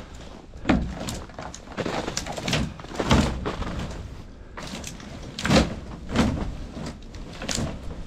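Pine branches crackling and rustling as they are trampled down in a pickup truck bed, with irregular heavy thumps from boots landing on the load and the truck bed.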